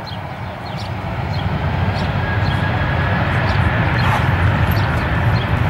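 Boeing C-17 Globemaster III's four turbofan engines running at taxi power, a deep rumble with a thin steady whine that grows louder as the aircraft comes nearer.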